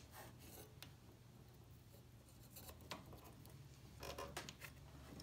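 Faint clicks and light scraping as small metal parts are worked into line over barbecue-skewer guides at a lawnmower carburetor, with a low steady hum underneath. The clicks come about a second in, near three seconds, and in a short cluster near four seconds.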